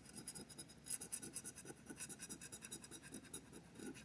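Rapid, light scraping strokes of a scratcher tool rubbing the coating off a paper scratch-off lottery ticket.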